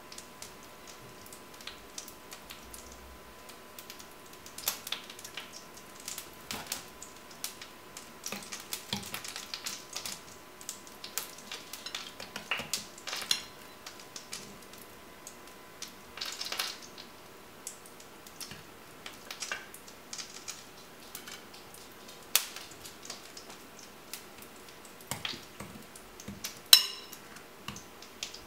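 Metal fork stirring and scraping a thick raw egg, grated cheese and ham mixture in a glass bowl: irregular clinks and scrapes of fork on glass with soft wet squishing. The sharpest clink comes near the end.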